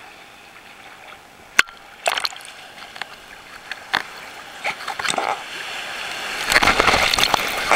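Ocean surf splashing at the water's surface close to the microphone, with a sharp knock and separate splashes, then the loud rush of a breaking wave's whitewash near the end.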